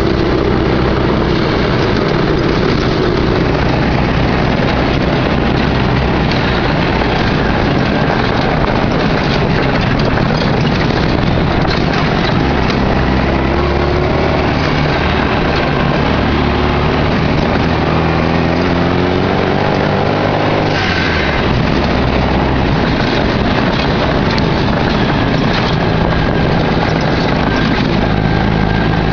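Off-road vehicle's engine running under load on a rough dirt trail, heard from inside the vehicle over rattling and road noise. The engine's pitch climbs steadily for several seconds, then drops abruptly about twenty-one seconds in, as on a gear change or lifting off the throttle.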